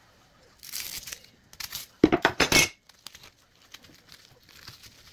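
Plastic cling film being slit with a knife and torn off a meat tray, crinkling and tearing in a few quick bursts, the loudest about two seconds in, then faint rustling.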